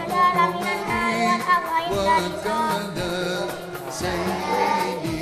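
Background music: a song with a singing voice carrying a melody over repeated drum strokes.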